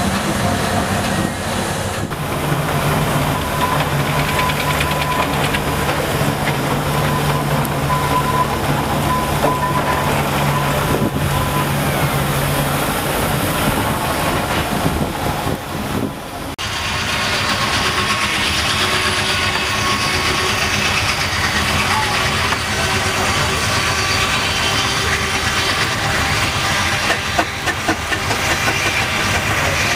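Steam traction engines and a small portable steam engine running, a continuous mechanical clatter with a low, steady drone through the first half. The sound changes abruptly about halfway through, then carries on as busier running noise.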